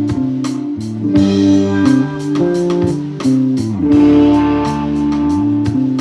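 Live rock band playing: electric guitar and bass guitar holding sustained notes over a drum kit, with regular drum and cymbal hits.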